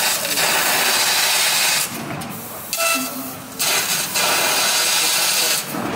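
6 kW fiber laser cutting head piercing and cutting small holes in 10 mm carbon steel plate: a loud hiss of assist gas and burning steel for about two seconds, a quieter gap, then a second hiss of about two seconds.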